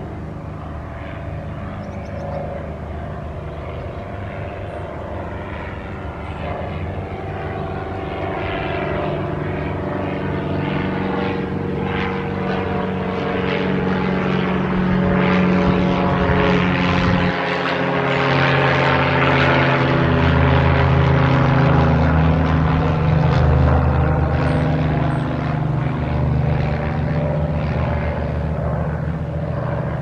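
Propeller aircraft flying over: a steady engine drone that grows louder to a peak about two-thirds of the way through, then slowly fades.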